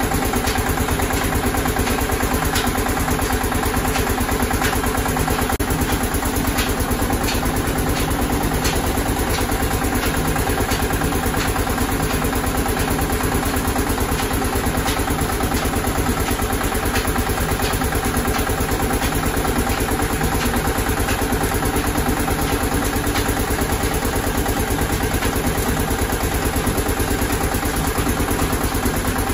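Belt-driven oil expeller (screw press) running steadily under power: a continuous mechanical drone with a fast, even low pulse and light clicking throughout.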